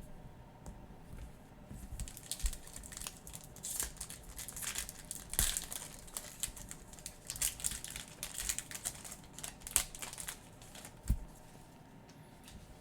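Foil wrapper of a trading card pack crinkling as it is torn open and handled, a run of crackles from about two seconds in until near the end.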